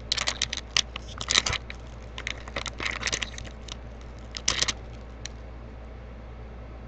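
Foil booster pack wrapper crinkling and crackling as it is torn open, with trading cards being handled, in a quick run of short rustles for about five seconds before it stops.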